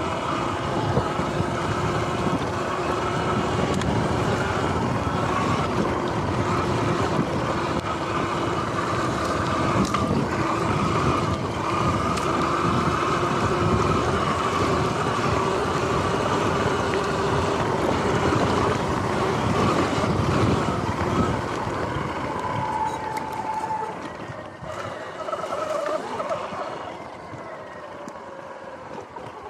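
Electric dirt bike riding across wet grass, its motor whining steadily over tyre and wind noise on the microphone. In the last few seconds it eases off and gets quieter as the motor note shifts.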